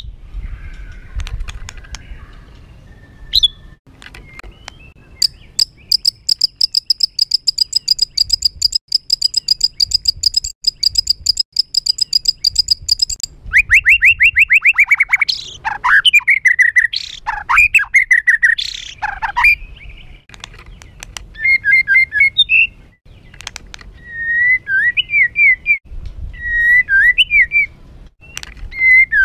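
White-rumped shama (murai batu) singing a harsh, agitated song. A fast high rattle runs for several seconds, then come a quick run of downward-sweeping notes, loud varied whistles and shorter phrases.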